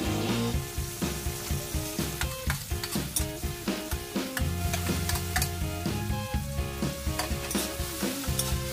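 Chopped tomato, garlic and onion sizzling in oil in a wok while a spatula stirs and scrapes them, with clicks of the spatula against the pan. Background music with held notes and a steady bass plays over it.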